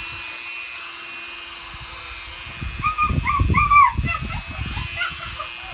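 Eight-week-old puppy whining in a run of short, high, arching yelps about three seconds in, with loud bumping and rustling as it squirms while held. A Dremel nail grinder hums steadily underneath.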